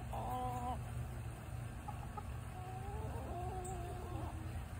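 A rooster crowing twice in stepped, held notes: the last note of one crow in the first second, then a full crow starting between two and three seconds in. A low steady rumble runs underneath.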